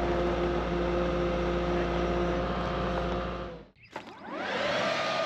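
The diesel engine of a Kato compact track loader running steadily with a deep rumble, cut off abruptly about three and a half seconds in. Then a Stihl leaf blower spools up with a rising whine that levels off near the end.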